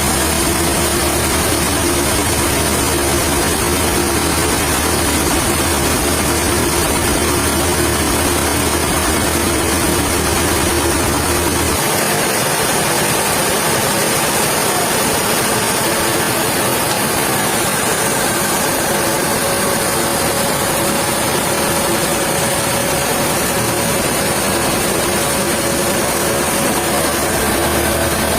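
Sawmill machinery running steadily, a loud, dense mechanical din. About twelve seconds in, the deep rumble drops away abruptly and a steady hum takes over.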